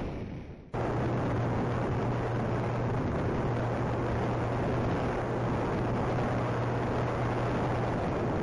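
Wind rushing over the onboard camera of a twin-motor RC plane in flight, with a steady low drone from its electric motors and propellers. The sound fades down and then cuts back in abruptly just under a second in.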